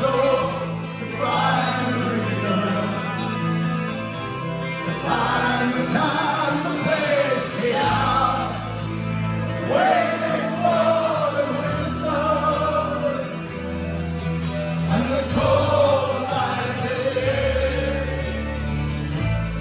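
Live rock band playing a slow heavy-metal ballad: a male lead voice sings long, bending lines over held bass notes that change every few seconds.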